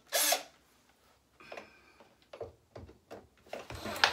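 Cordless drill-driver driving a cabinet hinge screw: a short burst at the start, then light clicks and brief trigger blips while the bit is set in the screw, with the drill beginning a longer run right at the end.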